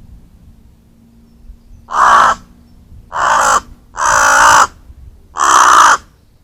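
Crow cawing four times, harsh, loud calls each about half a second long.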